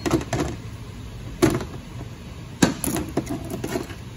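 Metal clanks and clatter of steel and friction clutch plates from an automatic transmission's clutch pack being pulled off the drum and set down on a metal workbench: a handful of separate knocks, then a quick cluster of lighter clinks near the end.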